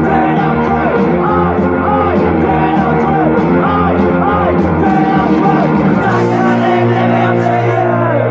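Raw early-1980s UK punk/oi demo recording: a rock band with electric guitars, bass and drums playing at full tilt, with singing over it.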